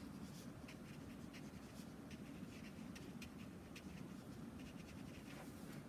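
A fine paintbrush dabbing and stroking on watercolour paper: a run of faint, short, scratchy strokes at an uneven pace, over a steady low hum.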